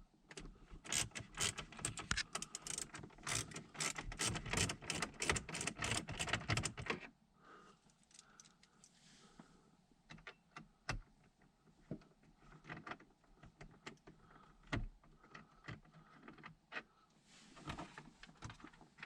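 Ratchet wrench clicking in quick runs on 7 mm bolts for about six seconds. After that, only scattered light clicks and taps of tools and parts being handled.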